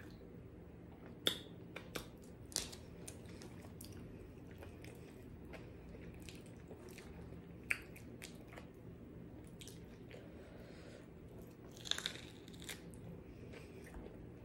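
A person chewing a fried fish sandwich up close to the microphone: quiet mouth sounds with a scattering of sharp clicks and crunches, and a small cluster of louder ones about twelve seconds in.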